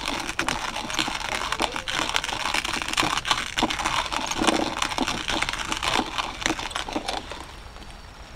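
Close rustling, crinkling and small clicks of hands working cord while tying and pulling a loop knot tight, stopping about seven seconds in.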